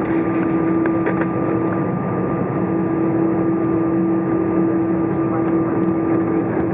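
Airbus A320 cabin noise on the ground just after landing: the jet engines and airflow make a steady rush, with a constant low hum and a fainter high whine running through it.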